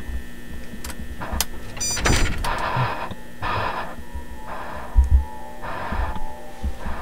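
A person breathing heavily in ragged breaths, about one a second, over a steady electrical hum. Low bumps run through it, the loudest about five seconds in, and there is a sharp click about two seconds in.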